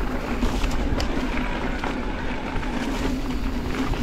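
Mountain bike running fast down a dirt trail: wind rushing over the microphone and tyre noise on dirt, with small clicks and rattles from gravel and the bike throughout.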